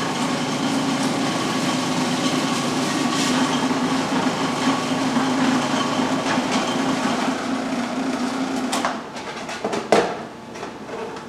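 Waring 3.5-quart commercial food processor's 1-horsepower motor running steadily with a shredding disc as a block of cheddar is fed through the continuous feed chute. The motor stops about nine seconds in, and a single knock follows about a second later.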